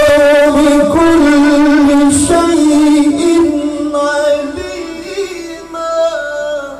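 Male qari's Qur'an recitation in the melodic tilawah style, sung into a handheld microphone: one long held note with a little vibrato, stepping up and back through ornamented turns. It grows softer in the last few seconds and tapers off at the end of the phrase.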